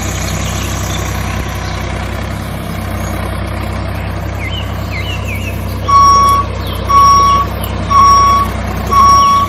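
Steady low tractor-engine hum with faint bird chirps. From about six seconds in, a loud reversing alarm beeps about once a second, signalling the tractor backing up.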